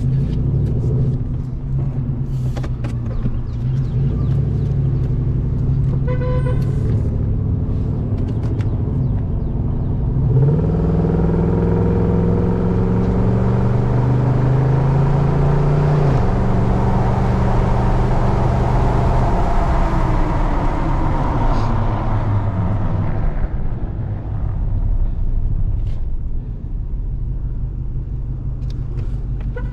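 A pickup truck's engine and road noise, heard inside the cab while driving. The engine pitch rises about ten seconds in as the truck speeds up and drops back about six seconds later, while tyre and wind noise swell and then fade. A short high beep sounds about six seconds in.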